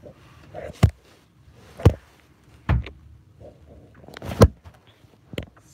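A series of five loud, sharp thuds, irregularly spaced about a second apart.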